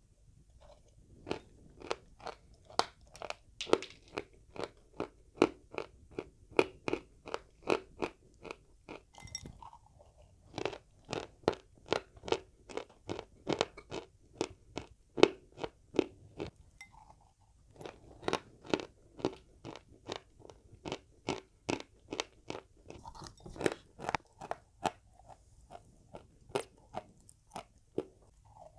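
Close-up chewing of dry chalk: a steady run of crisp crunches, about two a second, broken by two short pauses.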